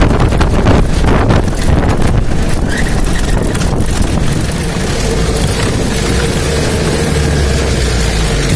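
Open off-road jeep's engine running as it drives along a rutted dirt track, with heavy wind buffeting on the microphone. The buffeting is gustier in the first few seconds, and the engine settles into a steadier hum about halfway through.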